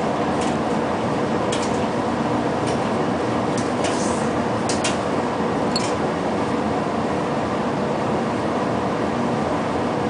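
English Electric 4602 tumble dryer running: a steady rush of air from its fan, with a constant motor hum underneath. A few light clicks and taps sound in the first half.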